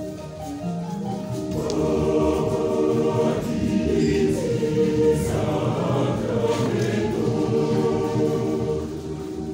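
Mixed church choir singing a piece in several-part harmony, with long held notes. It swells louder about two seconds in and eases slightly near the end.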